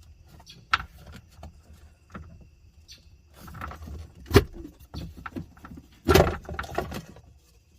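Hands working open the plastic electrical box on a Sea-Doo jet ski: scattered clicks, knocks and rattles, with a sharp snap about four seconds in and a louder clatter of knocks just after six seconds.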